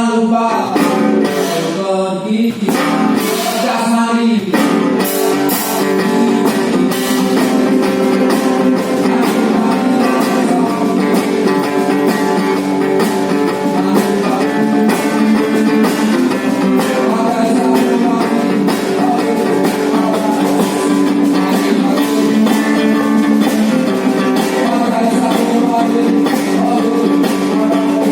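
A live band playing, led by strummed guitar, with a voice singing over it for the first four seconds or so, then instrumental playing.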